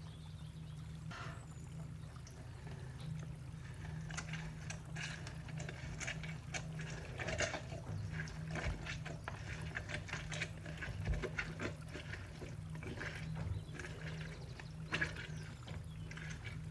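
Liquid pouring and dribbling in the kitchen, with many small clicks and knocks of utensils and containers being handled from a few seconds in.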